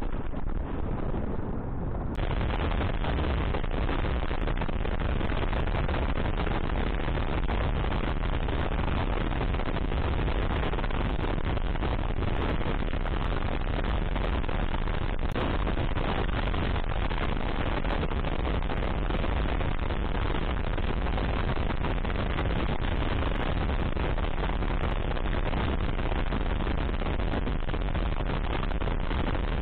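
Heavy wind buffeting on the microphone of a moving dual-sport motorcycle, a Kawasaki KLR 685, with the engine running underneath; a steady, crackling rumble.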